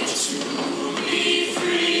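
High school show choir singing, with a long held note in the second half.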